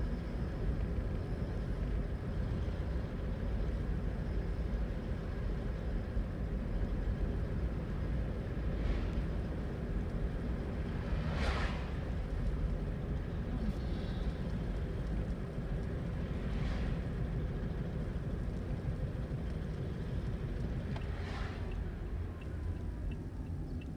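Toyota Aqua hybrid heard from inside while driving: a steady low road and cabin rumble, with a few brief whooshes along the way.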